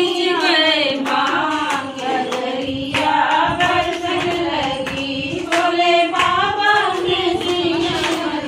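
A group of women singing a rural Hindi folk dance song (dehati geet) together in long held lines, with hand claps keeping the beat.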